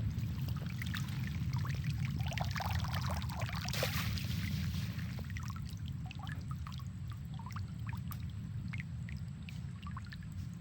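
Water pouring and splashing with scattered drips, busiest about four seconds in, over a steady low rumble.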